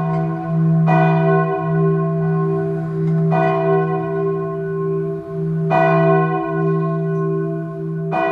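A church bell tolling, struck four times about two and a half seconds apart, each stroke ringing on and fading over a steady low hum.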